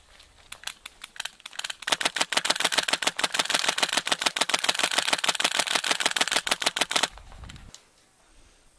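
Airsoft rifle firing: a few scattered single shots, then a long full-auto burst of rapid, even clicks lasting about five seconds that stops abruptly.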